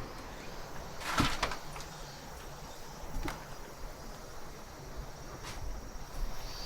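Footsteps on old wooden floorboards in a derelict house: a few short knocks, clustered about a second in and then single ones around three and five and a half seconds, over a faint steady background.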